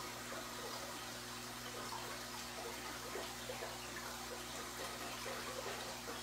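Aquarium air stones bubbling: a steady stream of small bubble pops and water churning at the surface, over a low steady hum.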